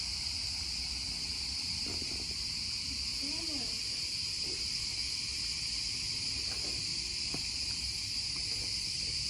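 Steady high-pitched background hiss or whine, unchanging, with a faint voice briefly audible in the middle.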